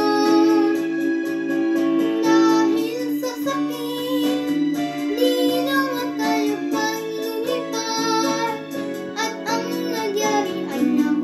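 A young girl singing a Tagalog song over an instrumental backing track.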